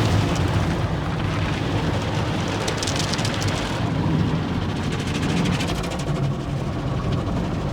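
Sonny's tunnel car wash heard from inside the car's cabin: cloth brushes scrubbing and slapping against the body while water and soap spray down, over a steady low rumble of the wash machinery. A run of rapid slaps and patters comes about three seconds in.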